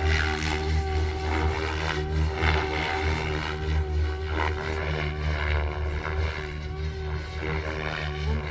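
Goosky RS7 electric RC helicopter in flight: a steady motor and rotor whine with blade noise that swells and fades repeatedly.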